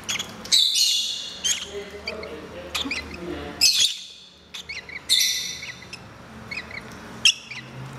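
Peach-faced lovebirds chirping in short, high notes, with two longer harsh, buzzy squawks, while the adults feed their chicks beak to beak.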